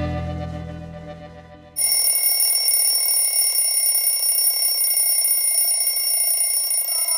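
A music chord dies away, then about two seconds in an electric bell starts ringing continuously for about five seconds, a cartoon sound effect.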